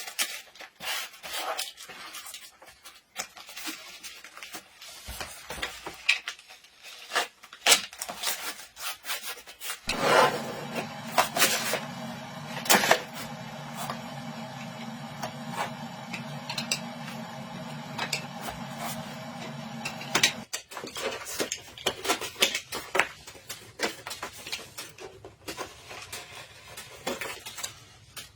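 Kitchen cookware and utensils being handled, with irregular clicks, knocks and rubbing. About ten seconds in, a steady motor hum starts from a small appliance, runs for about ten seconds and cuts off suddenly.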